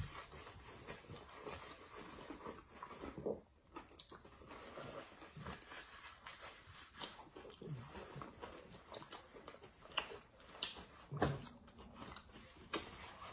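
Faint eating sounds: chewing and lip-smacking, with scattered light clicks of forks against plates.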